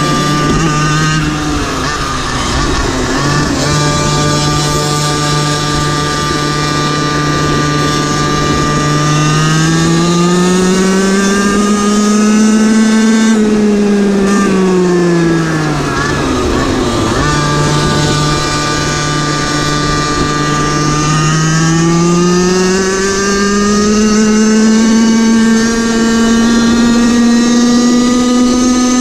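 Small engine of a GoPed GoQuad racing quad, heard from on board under way. It holds a steady high pitch, revs up and back down around the middle with a sharp dip as it drops, then climbs steadily again through the last third.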